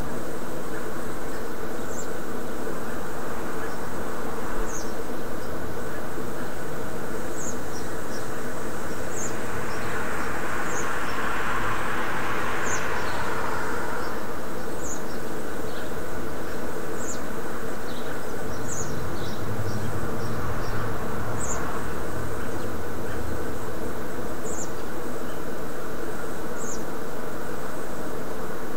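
Steady outdoor background: a constant buzzing hum, with short high chirps every couple of seconds and a rise and fall of noise near the middle.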